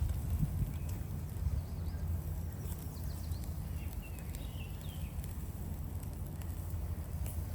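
Low rumble of wind on the microphone, with faint scattered crackles from the grill fire and a few short bird chirps around the middle.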